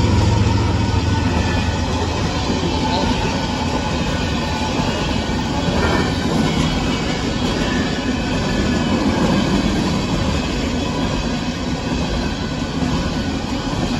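Freight train of empty coal hopper cars rolling past at a grade crossing: a steady rumble and rattle of wheels on the rails. The low hum of the trailing diesel locomotive fades out in the first second.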